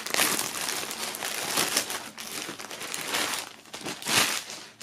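Clear plastic poly bag crinkling and rustling as a T-shirt is pulled out of it, with a louder crackle of the plastic about four seconds in.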